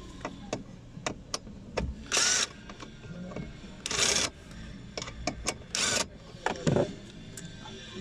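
Cordless drill-driver run in three short bursts of about half a second each, with scattered clicks and knocks of tools against the plastic dash trim.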